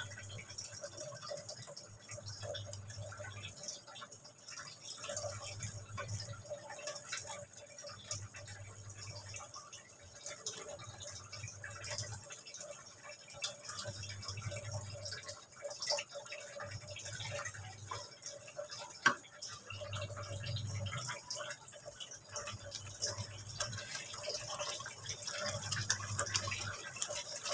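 Chicken in tomato sauce simmering in a nonstick frying pan as a spatula stirs it: faint bubbling and stirring sounds with scattered small clicks.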